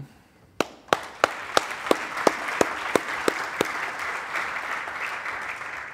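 Audience applauding: a few sharp single claps about half a second in build into steady applause from many people, which dies away near the end.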